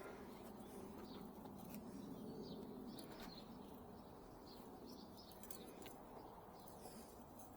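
Faint bird chirps, short and scattered, over a low steady background hum, with a few light clicks.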